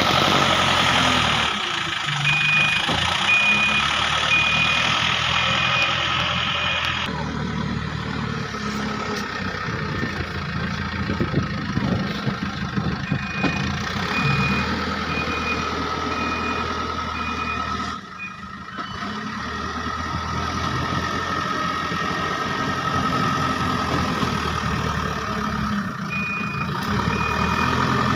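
Diesel engines of a backhoe loader and tipper trucks running at a dig site, with a vehicle's reversing alarm sounding three separate runs of steady, evenly spaced beeps: one a couple of seconds in, one around the middle, and one near the end.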